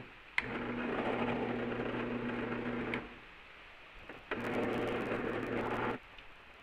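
Benchtop drill press motor switched on and off, running in two short spells of about two and a half seconds and then a second and a half with a steady hum, each starting and stopping abruptly.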